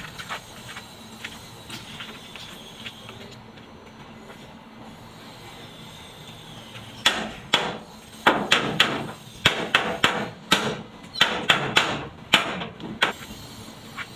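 Hammer blows on a washing machine's sheet-metal body, as dents are beaten out in a quick, irregular run of about fifteen sharp strikes starting about halfway through.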